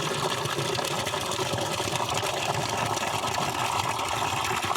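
Water gushing steadily out of a solar water pump's discharge pipe during a timed flow test of the repaired pump.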